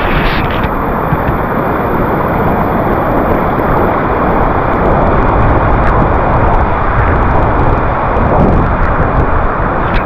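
Loud, steady roar of a swollen stream rushing over flat rock ledges in a broad, shallow cascade.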